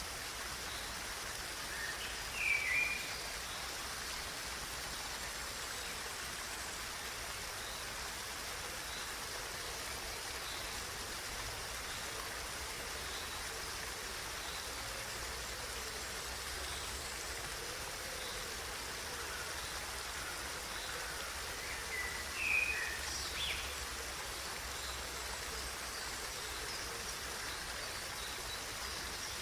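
Steady flowing water, like a stream, with a short bird call twice: a couple of seconds in and again about two-thirds of the way through.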